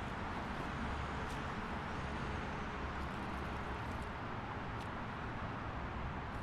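Steady road noise of a vehicle driving on a highway: an even rush of tyre and wind noise over a low rumble, with a few faint clicks.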